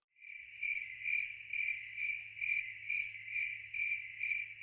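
Rhythmic high-pitched chirping, about two chirps a second, over a low steady hum.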